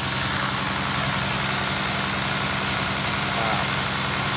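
Engine-driven water pump running at a steady speed, an even, unchanging drone.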